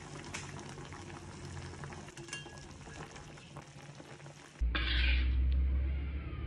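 Yellow fish broth simmering in a wok, bubbling and sizzling with small pops. About four and a half seconds in it gives way abruptly to a low rumble and a brief scrape.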